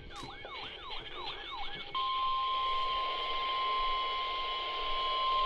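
Electronic siren-like tones sweeping quickly downward about five times, followed about two seconds in by a steady single-pitch alert tone: the 1050 Hz NOAA Weather Radio warning alarm that opens a severe thunderstorm warning broadcast.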